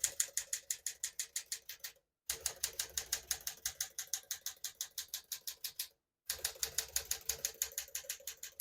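1961 Smith-Corona Sterling manual portable typewriter being typed on quickly: a steady run of crisp key strikes, about eight a second. The sound drops out completely twice, about two and six seconds in.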